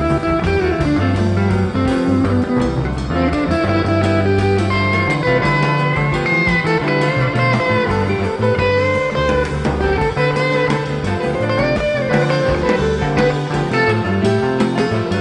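Background music: a guitar-led blues-rock track with a steady bass line and a bending lead melody.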